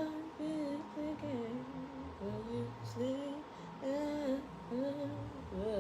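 A woman humming a slow, wordless melody in short phrases that rise and fall.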